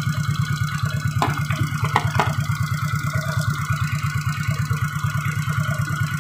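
Suzuki Shogun 125's single-cylinder four-stroke engine idling steadily with its battery disconnected, running smoothly now that a new regulator-rectifier is fitted; the rough sound before came from the weakening regulator-rectifier under-supplying the CDI. A few light clicks about one to two seconds in.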